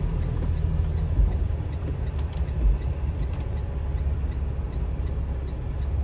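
Semi-truck's diesel engine running low, heard inside the cab with rain noise and a few sharp clicks. From about three and a half seconds in, an indicator flasher ticks steadily about twice a second as the truck turns in through a gate.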